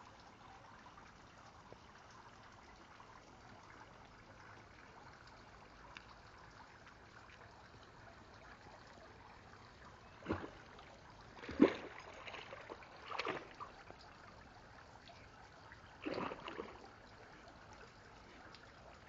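A German Shepherd puppy splashing into a swimming pool, with one loud splash a little past halfway and a few smaller splashes around it as it swims, over a faint steady trickle of water.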